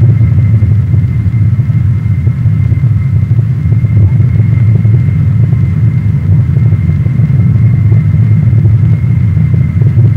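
Steady, loud low drone of aircraft engines in flight, with a faint steady high whine above it.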